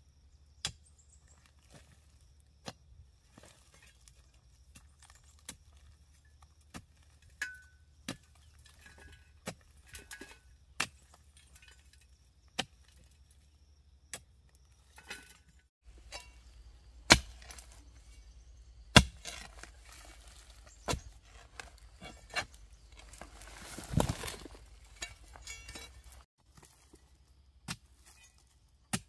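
Hand tools working: sharp knocks and clinks at irregular intervals, two much louder strikes past the middle, then a short rushing scrape a few seconds later.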